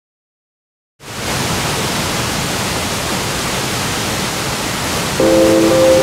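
Steady roar of a large mountain waterfall, white water crashing over rocks, coming in suddenly about a second in. About five seconds in, music with held notes joins it.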